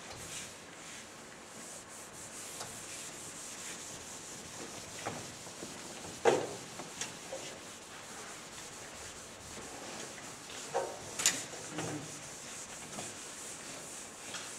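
Chalk writing on a blackboard: a continuous scratchy rubbing of chalk strokes, with two sharper knocks about six seconds in and again near eleven seconds.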